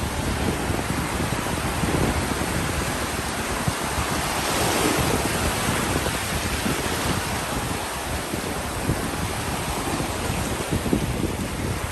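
Ocean surf breaking and washing up a beach, a continuous rush that swells as a wave comes in about halfway through. Wind buffets the microphone.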